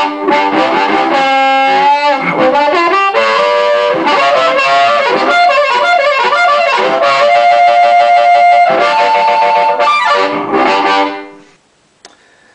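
Amplified blues harmonica played through a vocal microphone cut down to its bare element and into a VHT amp, for a powerful, break-up tone. It has bent notes and a long held note about two-thirds of the way through, and the playing stops about a second before the end.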